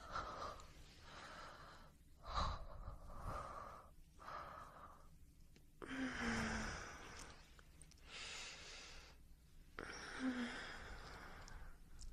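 A person breathing heavily: a string of breathy exhales and sighs, about eight in twelve seconds. Two of them, about six and ten seconds in, end in a short low moan.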